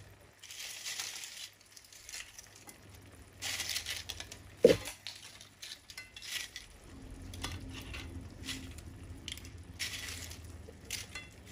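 Crisp potato chips rustling and crackling in several short spells as they are laid by hand into a frying pan of simmering tomato sauce, with one sharp knock near the middle.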